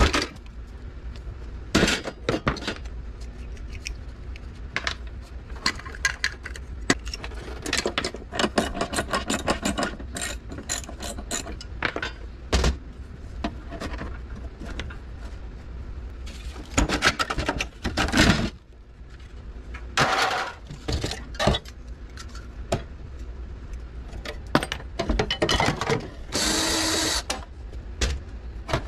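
Window air conditioner being dismantled by hand: long-handled cutters snip through its tubing and mounts, and sheet-metal parts clank and rattle as the fan motor is worked loose and lifted out. Near the end a cordless drill runs steadily for a second or two.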